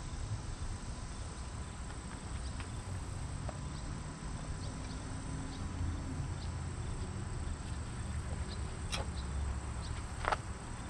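Quiet outdoor background with a steady high insect drone and a low rumble. Over it come scattered light ticks and clicks from soft-tie straps being fitted over motorcycle handlebar grips, the sharpest click near the end.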